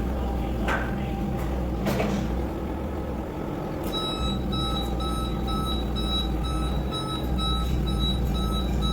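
A vehicle's backup alarm beeping about twice a second, starting about four seconds in, over the steady low rumble of a running engine. Two short knocks sound in the first couple of seconds.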